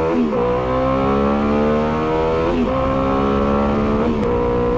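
Motorcycle engine under hard throttle, accelerating and shifting up through the gears: the pitch climbs, then drops sharply at each of three upshifts.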